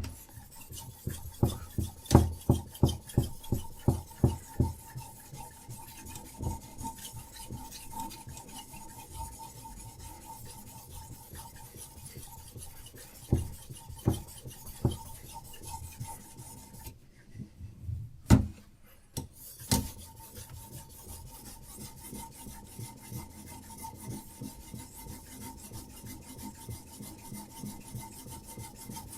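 Diamond sharpening stone on a Hapstone RS guided sharpener being stroked along a knife's edge. The rasping strokes come about three a second and sharp at first, then turn into smoother continuous rubbing. About two-thirds through there is a brief pause broken by a sharp knock.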